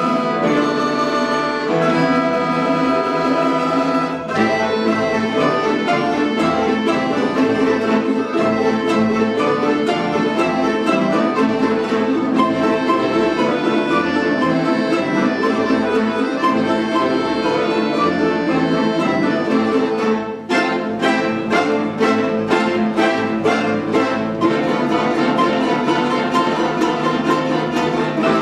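An orchestra of Russian folk instruments playing a lively dance. About 20 seconds in, the ensemble breaks into a run of sharp, evenly spaced accented chords for a few seconds, then returns to full, continuous playing.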